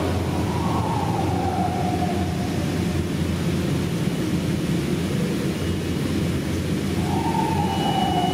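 New York City subway train approaching through the tunnel: a steady rumble with a whine that falls in pitch, once about a second in and again near the end.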